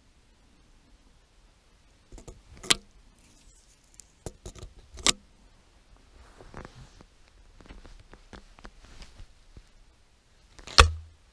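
Side-by-side break-action shotgun being loaded by hand: two sharp metallic clicks a few seconds apart with light handling rattles between as the shells go into the chambers, then the action snapping shut near the end, the loudest click with a short thump.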